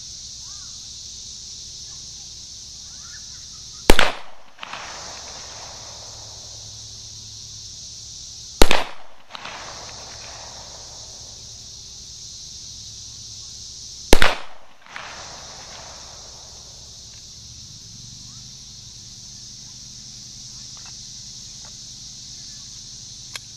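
Three single shots from a Springfield XDM 5.25 pistol in .40 calibre, about five seconds apart in slow aimed fire. Each shot is followed by a short echo that dies away.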